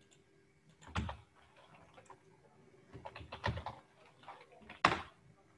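Computer keyboard typing: scattered key clicks, a sharp one about a second in, a quick run of keystrokes a little past the middle, and another sharp click near the end.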